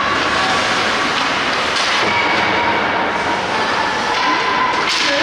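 Ice hockey arena ambience during a game: a steady wash of noise from skates on the ice with distant voices echoing in the rink, and two sharp knocks, one about two seconds in and one near the end, such as a stick or puck hitting.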